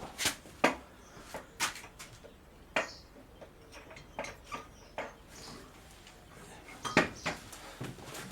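Irregular sharp metallic clinks and taps of hand tools and metal parts being handled, about a dozen in all, the loudest about seven seconds in.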